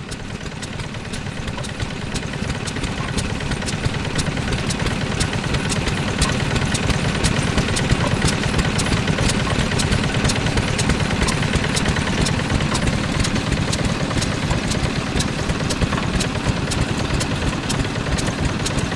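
Yanmar NS40-G single-cylinder diesel engine running steadily, growing louder over the first few seconds and then holding even. Regular sharp ticks about three times a second run through it.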